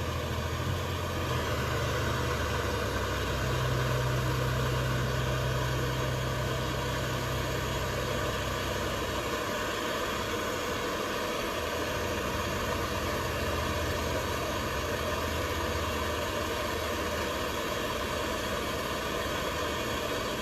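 A steady low mechanical hum with a hiss over it, like a motor or engine running; the hum changes about nine seconds in.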